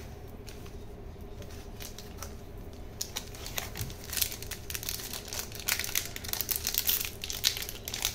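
Foil Pokémon booster-pack wrapper crinkling and crackling in the hands as it is gripped and torn open, starting about three seconds in and growing louder and denser toward the end.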